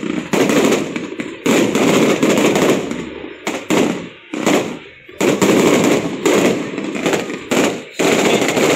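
Fireworks display going off: a string of sudden loud bangs about every second, each dying away over about a second before the next.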